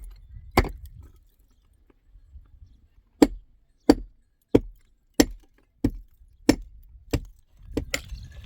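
Sharp, evenly spaced blows of a hand tool striking something solid, about three every two seconds, with a pause of about two seconds after the first blow.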